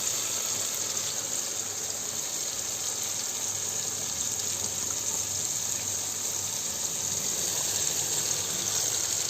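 Ginger, garlic and onion paste sizzling steadily in hot oil in a pan.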